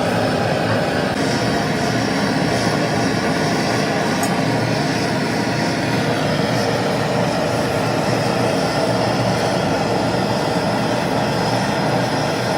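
Steady, loud mechanical running noise, like a machine or engine running continuously.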